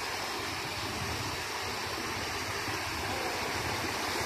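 Flood water rushing and splashing around a Mitsubishi Triton pickup as it wades through the water, a steady wash that grows a little louder as the truck approaches.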